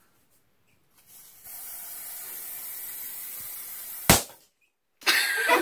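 Aerosol can of glitter spray hissing steadily for about three seconds, cut off by a single sharp pop, the loudest sound. A loud, harsh burst starts near the end.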